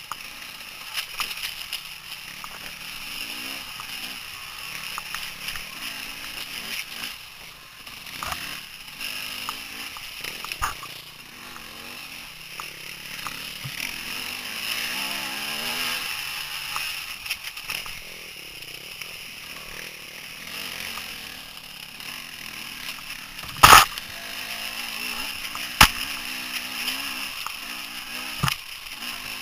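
Dirt bike engines running at trail speed on singletrack, the revs rising and falling, heard from on a moving bike. A few sharp knocks from the trail; the two loudest come close together in the last third.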